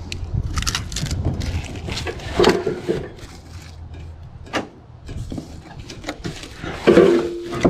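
Cardboard packing being cut with a folding knife and pulled apart by hand: irregular scraping, tearing and rustling of cardboard and plastic wrap, with several light knocks.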